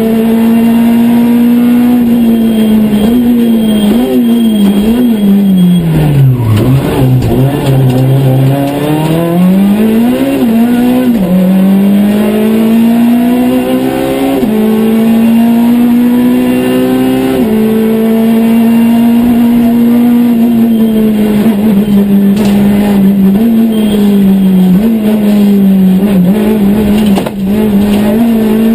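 Citroën C2 R2 Max rally car's four-cylinder engine at full stage pace, heard from inside the cabin. The revs hold high and drop sharply at each upshift; about a quarter of the way in they fall low as the car slows, then climb again through the gears.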